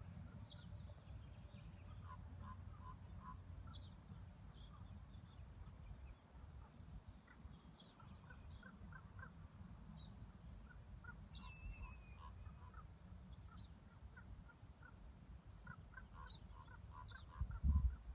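Birds calling overhead in repeated short series of harsh notes, with a few brief higher calls mixed in: birds mobbing a red-tailed hawk. A low rumble runs underneath, with a loud bump near the end.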